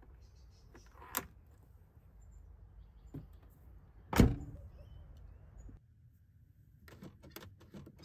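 A small click as the rear door's child-lock lever is flipped with a key, then the pickup's rear door shutting with one loud bang about four seconds in. Near the end, a few quick clicks from the rear door's inside handle being pulled.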